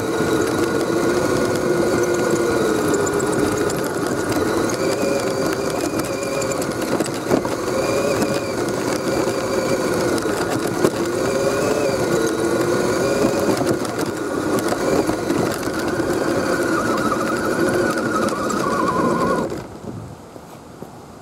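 Electric motor and geared drivetrain of an Axial SCX10 RC crawler whining as it drives, the pitch wavering up and down with throttle. The whine falls near the end as the truck slows, then cuts off abruptly.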